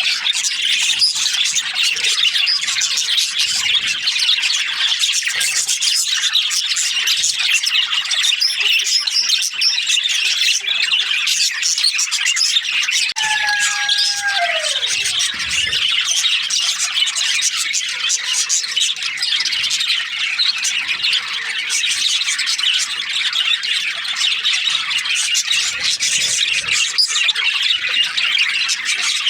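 Budgerigars chattering and squawking without a break, a dense high warbling. About halfway through, one tone slides steeply down in pitch.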